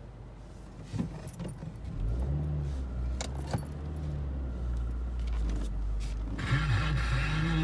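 Keys jangle and click inside a car, then a car engine settles into a low, steady idle about two seconds in. A steady hiss joins near the end.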